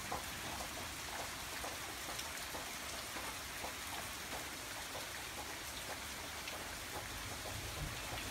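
Steady rain falling: an even, quiet hiss with many small scattered drop ticks.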